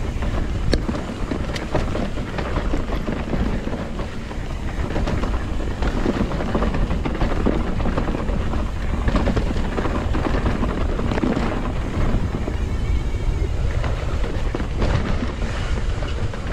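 Mountain bike riding down a rocky trail: tyres rolling and crunching over dirt and rocks, the bike rattling and clattering over the bumps. A steady low rumble runs under frequent sharp knocks.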